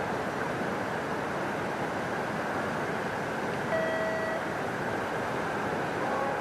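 Steady rush of whitewater through a canoe slalom channel, with a single short electronic beep about four seconds in.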